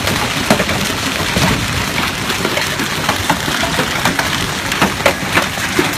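Hail and heavy rain pelting down: a dense, steady hiss of falling rain broken by many sharp, separate knocks of hailstones striking.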